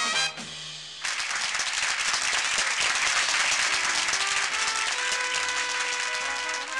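A Dixieland jazz band's tune ends on its final notes, and about a second in a nightclub audience breaks into loud applause. Near the end, held horn notes of the band's next number start up under the clapping.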